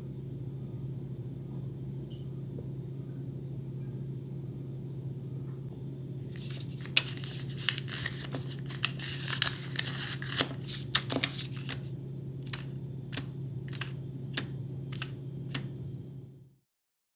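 Paper lottery tickets being handled on a stone countertop: rustling and scraping of paper for about five seconds starting around six seconds in, followed by a string of single sharp ticks. A steady low hum sits underneath throughout.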